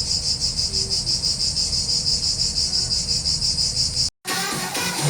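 Cicadas calling together: a loud, steady, high buzzing with a fast pulse. It cuts off suddenly about four seconds in, and music starts just after.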